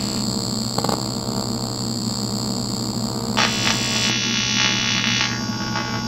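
AC TIG welding arc on 6061 aluminium, buzzing steadily with a hiss as filler rod is fed into a hole over a copper backer. About three and a half seconds in, the buzz takes on a higher, harsher edge for a couple of seconds.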